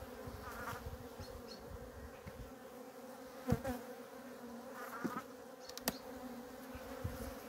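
Honeybees buzzing over an open hive, a steady hum from a restless, bad-tempered colony, which the beekeeper thinks may be short of honey stores. A couple of sharp clicks come through the hum, about three and a half seconds in and again near six seconds.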